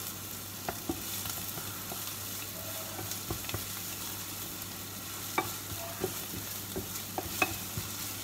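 Chopped onion and garlic sizzling in hot peanut oil in a frying pan, stirred with a wooden utensil that taps against the pan now and then. They are being softened until soft and brown.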